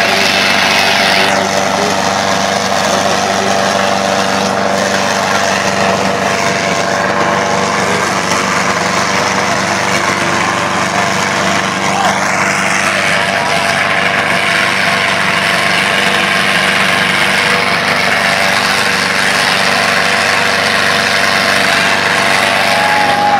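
Sonalika DI 750 tractor's diesel engine running hard and steady under load as it pulls a double harrow, with crowd voices over it.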